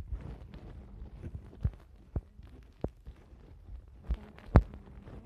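A few soft, separate thumps and knocks, about five, spread out with the loudest near the end, over a faint background.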